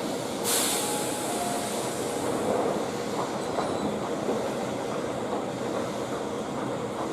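Electric train running on the rails, with faint wheel squeal and a short sharp hiss about half a second in.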